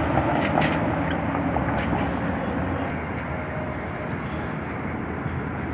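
City street traffic: a car engine running close by, fading as the car moves off, over a steady hum of traffic.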